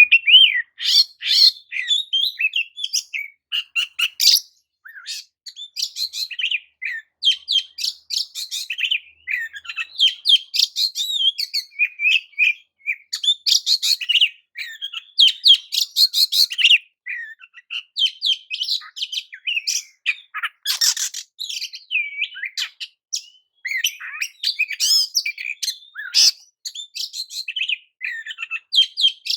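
Oriental magpie-robin (kacer) singing: a loud, varied song of rapid chirps, sweeping whistles and trills, delivered in quick phrases with brief pauses.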